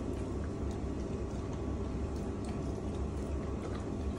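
German shepherd eating at its food and water bowls: faint wet mouth sounds and a few scattered clicks over a steady low hum.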